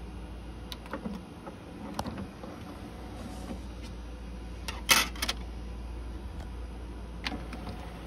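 Sony CDP-CE415 five-disc CD changer's tray and carousel mechanism working: scattered clicks of buttons and the tray motor over a steady low hum, with a short burst of plastic clattering about five seconds in, the loudest sound.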